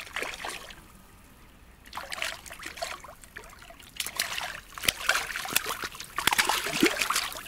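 Water splashing and dribbling as a hooked crucian carp is landed: quiet at first, then irregular splashes from about two seconds in, busiest near the end.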